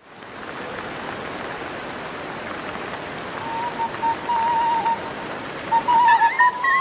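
Steady rain, fading in at the start. About halfway through, a thin, high, wavering melody line comes in over the rain and grows louder near the end.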